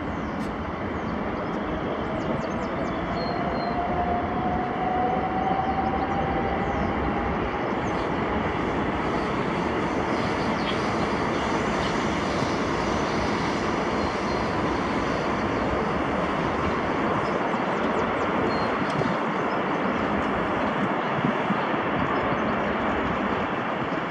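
Airbus A380 jet engines running as the airliner rolls along the runway: a steady roar that grows a little louder over the first few seconds, with a faint whine rising in pitch.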